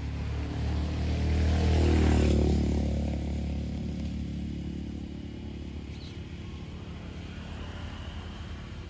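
A motor vehicle's engine passing by: it grows louder to a peak about two seconds in, then fades away, leaving a low engine hum.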